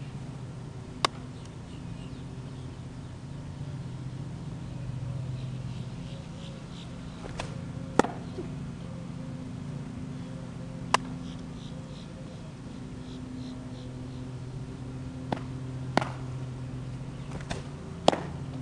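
Sharp pops of a baseball smacking into a leather glove, seven times, the loudest near the end just after a pitch is thrown. A steady low hum runs underneath.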